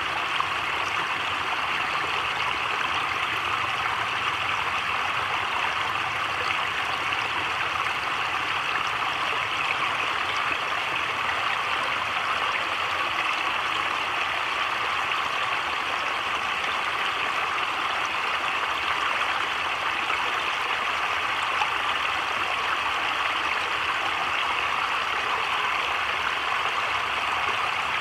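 Heavy rain falling on a creek's surface and the surrounding leaves, a steady, even hiss with no thunder.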